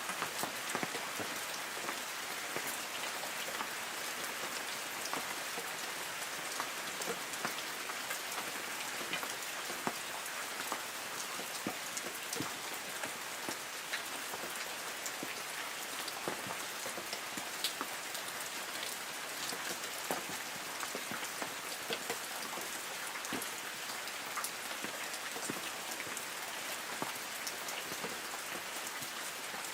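Light rain falling steadily on forest trees: an even hiss of rainfall with many separate drops pattering on leaves.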